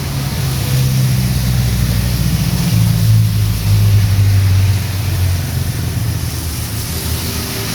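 A motor vehicle's engine running as it passes along a rain-soaked street, loudest about three to four and a half seconds in, over the steady hiss of heavy rain.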